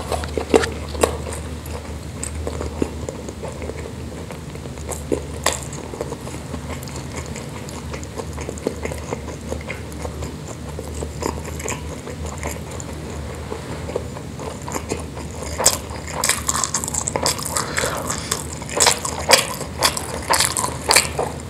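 Close-miked chewing and wet mouth sounds of someone eating rice and meatballs, a string of short smacking clicks that thins out in the middle and grows dense and louder about three-quarters of the way through.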